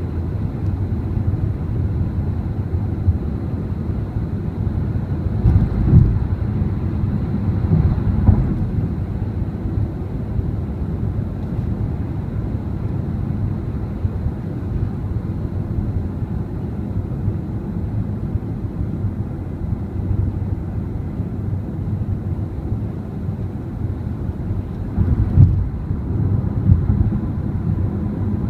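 Steady low rumble of a car driving at freeway speed, heard from inside the cabin: road and tyre noise with engine drone. A few louder low thumps break in about six and eight seconds in and twice more near the end.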